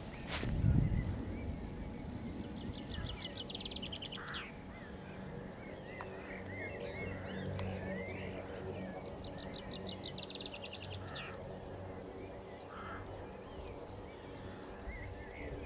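A songbird singing twice, about six seconds apart: each song is a quick run of repeated high notes ending in a falling note. Other small bird chirps sound in between, over steady low outdoor noise, with a brief low rumble near the start.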